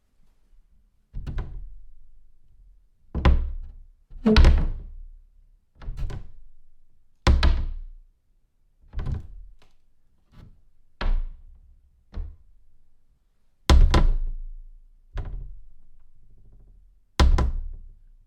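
A series of about a dozen doors shutting, each a solid thunk with a short fading tail, one every one to two seconds.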